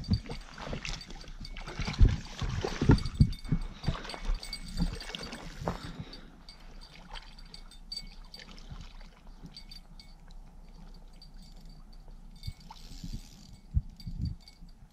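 Water sloshing and splashing around an angler's waders as he wades in, with irregular knocks and thumps. It is busiest for the first six seconds, then drops to a quieter wash.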